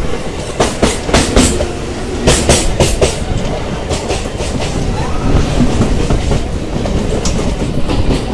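Passenger train running on rails at close range: a steady low rumble, with the wheels clacking over rail joints, often in quick pairs.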